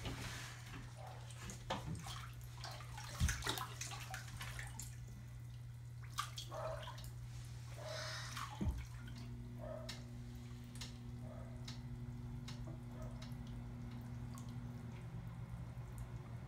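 Bathwater sloshing and dripping as a child climbs into a filled bathtub and lies down in it, with knocks against the tub, the loudest about three seconds in. A steady low hum runs underneath.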